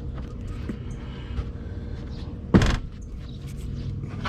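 A single loud thump about two and a half seconds in, over a steady low hum.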